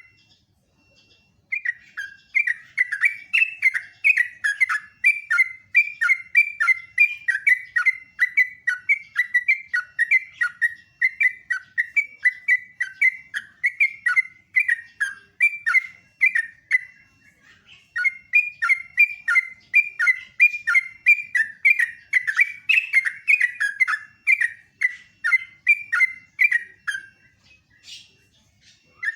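Yellow-vented bulbul (trucukan) singing long, rapid runs of bubbly, chattering notes, broken by brief pauses about a second in, midway and near the end.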